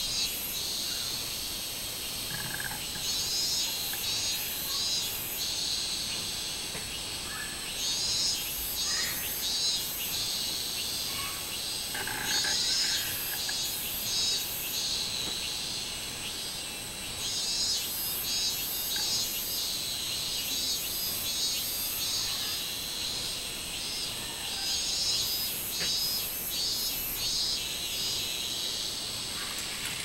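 Robust cicadas (minmin-zemi) singing from a tree: a pulsing high-pitched call that comes in repeated bursts, over a steady shrill drone.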